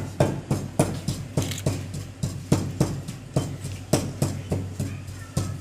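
Steady rhythmic knocking, about three strikes a second, from palapa ingredients (ginger, chili) being worked by hand, with a steady low hum underneath.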